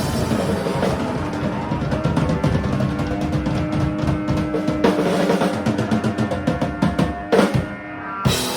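Drum kit played in a fast roll of rapid snare, tom and bass-drum hits over a held, ringing note, ending in two hard cymbal-and-drum hits about a second apart near the end as the jam winds up.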